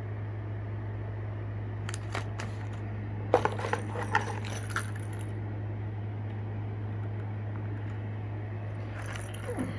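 Fishing lures in their plastic retail packaging being handled and unpacked, clicking and rattling in short bursts, heaviest around three to five seconds in and again near the end, over a steady low hum.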